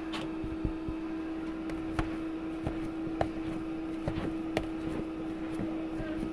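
A wire potato masher pressing down into hot boiled potatoes in a plastic container, making soft irregular knocks, about one a second, as it meets the container. A steady low hum runs underneath.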